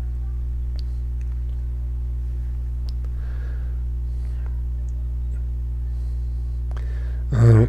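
Steady electrical hum with a buzz of evenly spaced low overtones, unchanging in level, with a few faint ticks over it.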